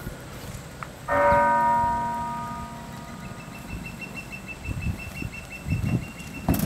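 A church bell struck once about a second in, its tone ringing out and fading over about two seconds: a funeral toll.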